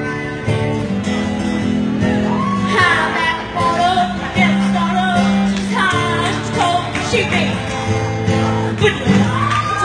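Live acoustic guitar strumming steady chords, with a bending lead melody line carried over the top.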